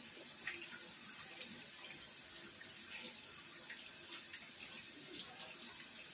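Kitchen tap running into a sink while hands are washed under it: a steady rush of water with small splashes.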